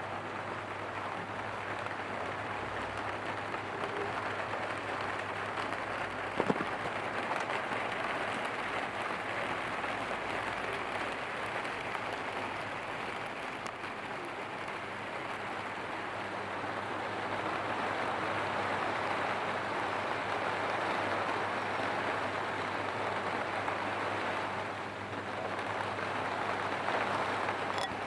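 Steady rain falling, an even hiss, with one sharp tick about six seconds in.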